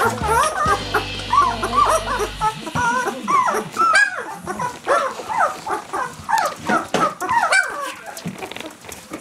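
Newborn puppies whimpering and squeaking: a rapid run of short, high cries that rise and fall in pitch, dying away near the end.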